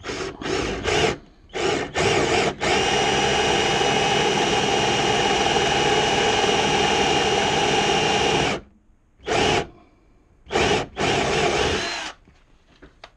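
Electric drill boring a wide countersink hole into a wooden bench top: a few short bursts as it starts the cut, then a steady run of about six seconds with a motor whine, then two more short bursts.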